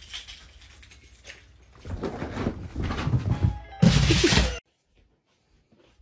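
Background music with noisy sounds building from about two seconds in, loudest in a sudden burst near four seconds, then cut off abruptly.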